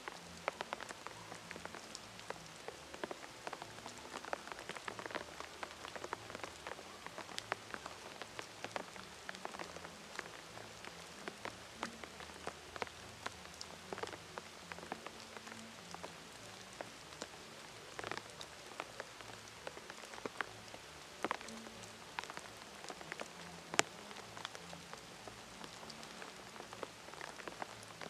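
Rain falling on forest leaves: a steady hiss with irregular sharp drop hits, one louder hit about four seconds before the end.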